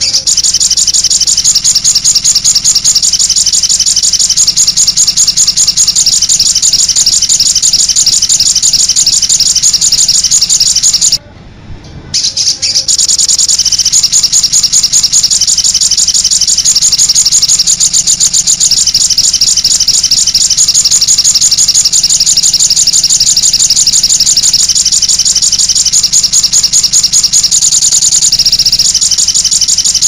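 Song of a small sunbird-family songbird known to bird keepers as sogok ontong: a fast, unbroken stream of high twittering notes that breaks off for about a second and a half around 11 seconds in, then carries on. It is a master recording used to lure wild birds and tutor caged ones.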